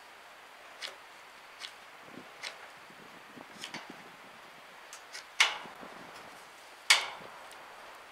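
A knife blade cutting and shaving the wooden end of a stick: a scatter of small clicks and scrapes, with two much louder sharp cracks about five and a half and seven seconds in.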